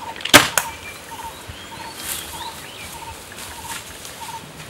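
Two sharp cracks close together just after the start, the first very loud. Then a bird calls a short note over and over, a little under twice a second, with a few rising chirps higher up.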